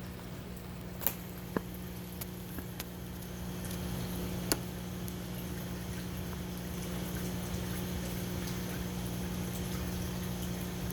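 Steady hum of an aquarium pump or filter over running water, with a few sharp clicks in the first five seconds.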